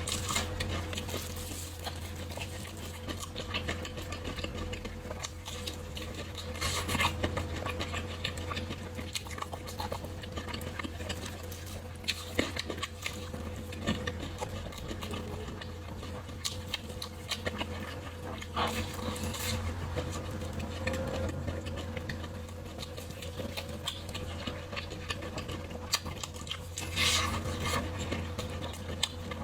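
Close-miked eating sounds: chewing and wet mouth noises with many small clicks, and a few louder bursts over a steady low hum.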